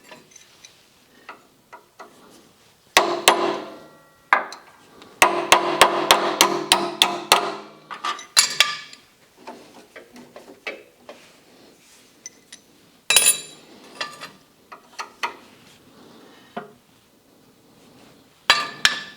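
Hammer blows on steel, ringing, as a pin is driven out of the drive shaft: two blows, then a quick run of about ten, then scattered single blows and a quick pair near the end.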